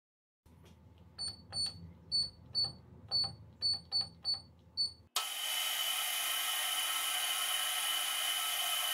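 About nine short electronic beeps from the keypad of a SINO SDS6-3V digital readout as its keys are pressed, over a low hum. About five seconds in, this cuts abruptly to the steady whine and hiss of a metal lathe turning a metal workpiece.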